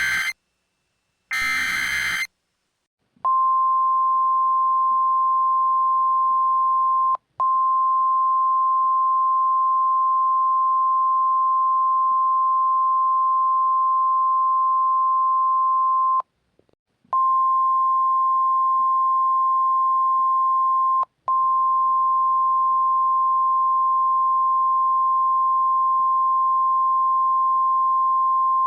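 EAS digital (SAME) data bursts, harsh screeching blips: the end of one right at the start and another about a second later. Then the NOAA Weather Radio 1050 Hz warning alarm tone, one steady single-pitched beep, starts about three seconds in and runs on, cutting out briefly three times.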